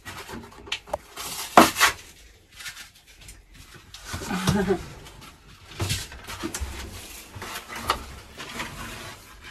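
Cured spray-foam insulation being picked and scraped by hand off a narrowboat's steel hull inside an opened wall cavity: irregular sharp scrapes, cracks and knocks, with a brief pitched sound about halfway through. The foam is set hard and comes away only with difficulty.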